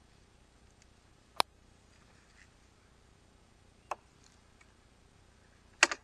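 Metal hive tool clicking against the wooden frames and box of a beehive as a frame is levered loose to be lifted out. There are three sharp clicks: the loudest about a second and a half in, a smaller one about four seconds in, and a quick double click near the end.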